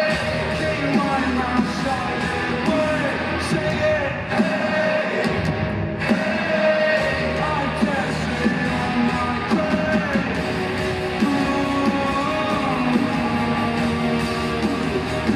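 Live rock band playing, with distorted electric guitar and drums and a voice singing or shouting over it, as heard through a fan's phone in a loud arena.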